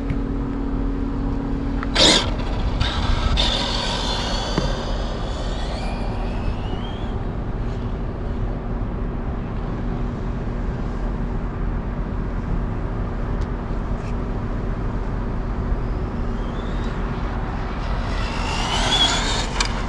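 A battery-electric RC drag truck's motor whines as it makes a speed run on a 3S battery: a high whine starts about three seconds in and fades away over several seconds, and another comes near the end. There is a sharp click about two seconds in, over steady outdoor background noise.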